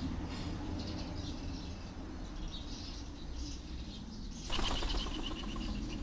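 A pigeon's wings flapping in a sudden burst of rapid beats about four and a half seconds in, lasting over a second. Small birds chirp faintly before it.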